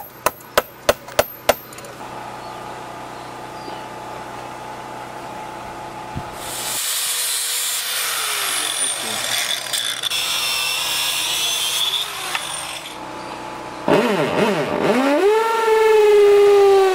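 Claw hammer tapping a steel bolt through a Guadua bamboo pole, about three quick metal-on-metal strikes a second, stopping after a second and a half. A steady hum and then a hiss follow, and near the end a loud pitched sound swoops down, rises and holds.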